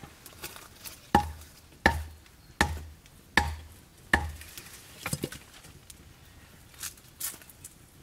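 Hatchet chopping into a log: five hard strikes about three-quarters of a second apart, followed by a few lighter knocks.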